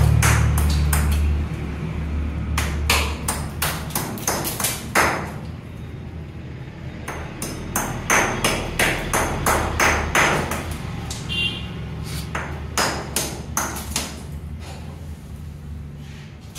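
A hammer striking a hand-held fired clay brick to chip it to size: dozens of sharp taps in quick, irregular runs.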